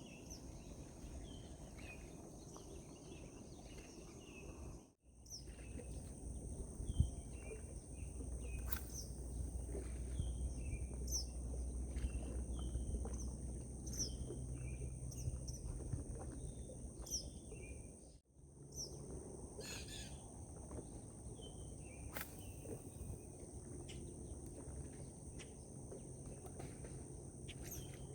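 Morning outdoor ambience: small birds chirping over and over, over a steady high-pitched insect drone and a low rumble. The sound drops out briefly twice, about five seconds in and near two-thirds through.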